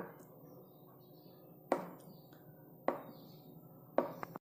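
Plastic spoon knocking against the side of a glass bowl while stirring cake batter: five short clinks spaced about a second apart, the last two close together near the end.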